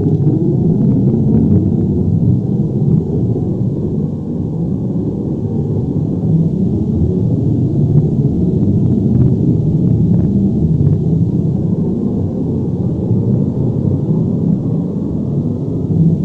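Earthquake or avalanche rumble sound effect: a deep, continuous, steady rumble, with faint scattered crackles above it.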